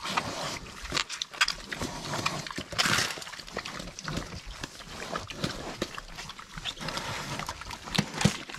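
Mangalitsa pigs eating a pile of cabbage and other old produce: irregular wet crunching and chewing, with a louder rasping crunch about three seconds in.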